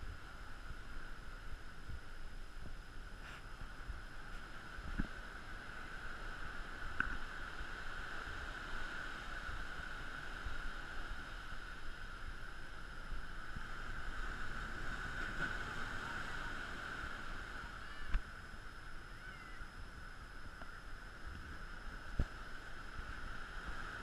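Pacific surf washing onto a sandy beach, a steady wash that swells gently, under a constant high buzz. A few light knocks come through.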